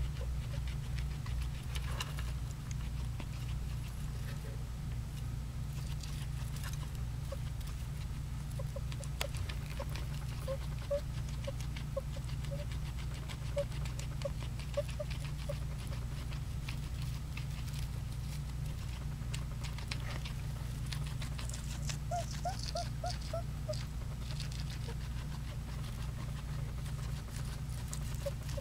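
Guinea pig crunching dry food in a steady patter of small bites, with short faint wheezing peeps in several quick runs between the crunches. A steady low hum runs underneath.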